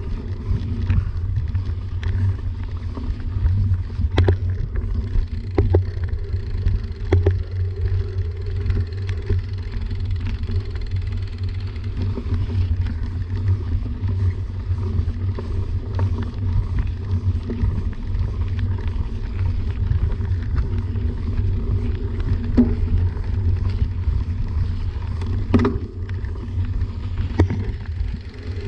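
Mountain bike rolling along a dirt forest singletrack: a steady low rumble of the tyres on the trail, with a few sharp knocks and rattles as the bike goes over roots and bumps.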